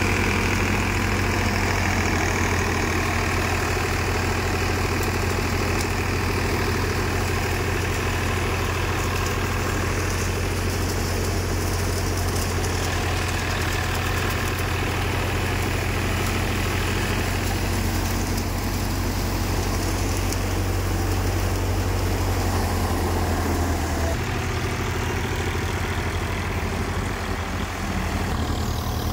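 Massey Ferguson tractor engine running steadily, driving a multicrop thresher that is threshing paddy. The engine note changes slightly about 24 seconds in.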